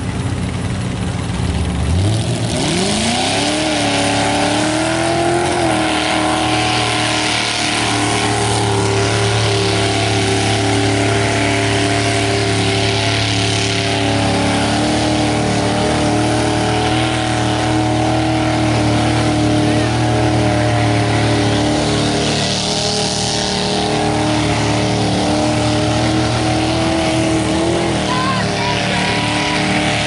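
Lifted mud-bogging truck's engine revving up hard about two seconds in, then held at high revs as its tractor tyres spin and throw mud.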